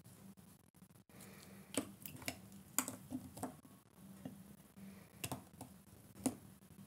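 Irregular light clicks and taps, about seven in all, mostly in the middle of the stretch, from small craft tools and materials being handled at a work table.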